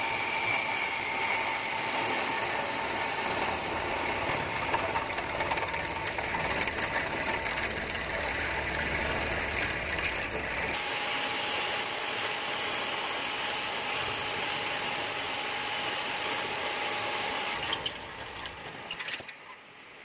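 HMT radial drilling machine running, its twist drill boring through thick steel plate: a steady machine noise with a faint high whine from the cutting. Near the end it turns briefly rattly and uneven, then drops away sharply.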